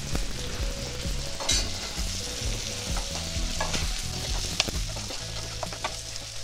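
Mutton masala sizzling in a pan while it is stirred, with a few sharp clicks and scrapes of the utensil against the pan.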